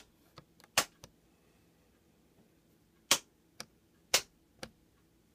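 Metal toggle switches on a model railroad control panel being flicked by hand, throwing the powered turnouts between normal and reverse: a string of sharp clicks, the loudest about a second, three and four seconds in, with fainter ticks between.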